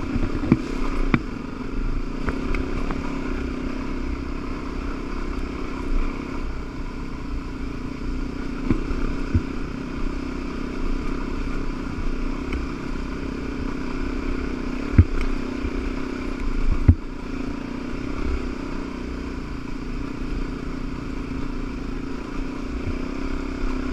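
Dirt bike engine running at a low, fairly steady speed on a rocky trail, with a few sharp knocks and some clatter as the bike rides over rocks.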